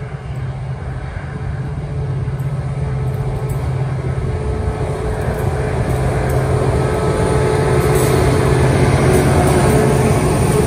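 Train at a railway crossing, a loud steady low engine-like sound that grows gradually louder as it approaches.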